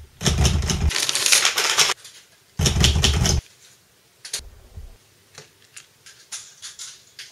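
Manual portable typewriter being typed on: a fast, dense run of key strikes for about two seconds, a second short burst, then scattered lighter single clicks.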